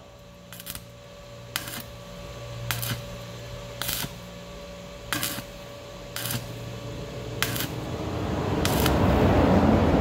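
Stick welding with an inverter welder on thin sheet-steel fender: the electrode arc is struck in short crackling bursts about once a second, then held as a continuous, louder crackle over the last two seconds. The welding is done in bursts because holding the arc on red-hot thin steel burns through it.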